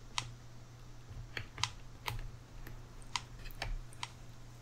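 Light, irregular clicks and taps, about ten in all, as small sewing notions such as a needle threader and a spool of thread are handled and fitted into a cardstock sewing box.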